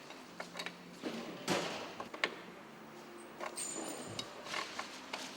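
Scattered light clicks, taps and a short scrape of tool-on-metal handling as the MegaExo bottom bracket cup and its cup tool are worked in the frame's threaded shell.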